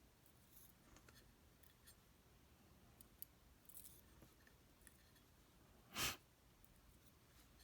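Near silence, with a few faint light ticks of lock picks working in a Tesa TK100 lock, and one short breath about six seconds in.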